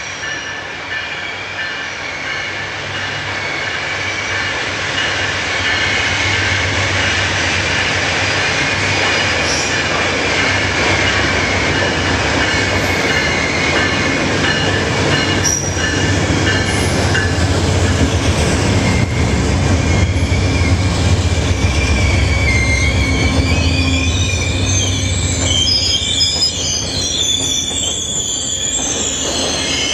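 Amtrak passenger train braking as it pulls into the station, with a shrill squeal of brakes and wheels throughout. The locomotive's deep rumble grows louder and is strongest about two-thirds of the way through as it passes. Near the end the squeal wavers higher as the cars slow.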